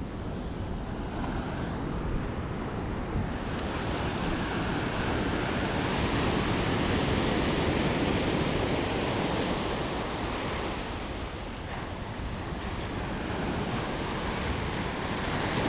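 Ocean surf breaking and washing up the sand: a steady rushing hiss that swells for several seconds, eases, then builds again as the next wave comes in, with wind buffeting the microphone underneath.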